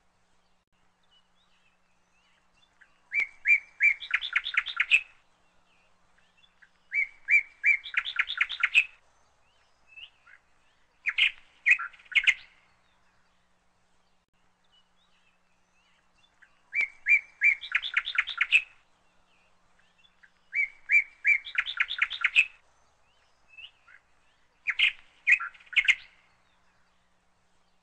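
Songbird singing: about every four seconds a phrase of a few clear notes runs into a fast trill. The same three-phrase sequence comes twice.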